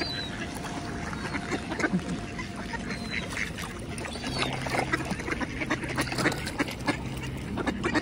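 A flock of mallard ducks quacking and chattering busily, with a few thin high calls above them.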